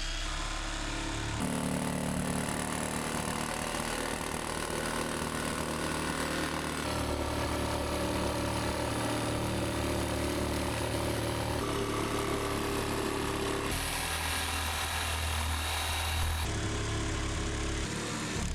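Power tool running steadily, cutting holes through the truck's wall, its tone changing abruptly several times.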